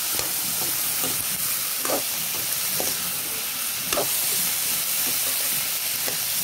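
Bottle gourd peel strips and potato sizzling in hot oil in an iron kadai, stirred with a metal spatula that scrapes and clinks against the pan now and then, loudest about four seconds in.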